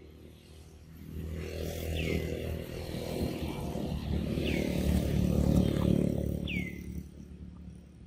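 A motor vehicle's engine passes by, growing louder to a peak about six seconds in and then fading. A bird repeats a short call that falls in pitch, about every two seconds.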